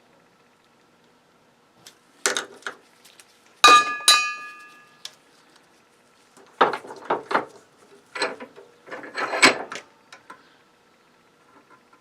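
Small metal parts of a circuit breaker clicking and clinking as it is handled and pulled apart by hand; one piece rings briefly with a metallic clink about four seconds in, followed by several more groups of knocks and rattles.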